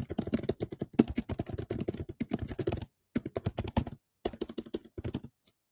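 Rapid typing on a computer keyboard: fast runs of key clicks with brief pauses, stopping near the end.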